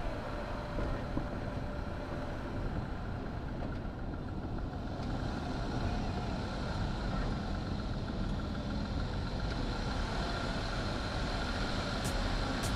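Jeep engine running at low speed as it crawls along the trail, a steady deep noise with no change in pitch. A couple of sharp clicks come near the end.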